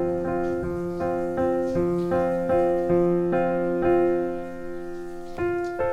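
Background piano music: a gentle run of single notes, about two or three a second, growing softer for a moment before a louder note near the end.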